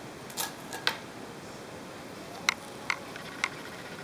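A cat pawing fish crackers out of a bowl and crunching them: a few short sharp clicks, two within the first second and three more about half a second apart near the end.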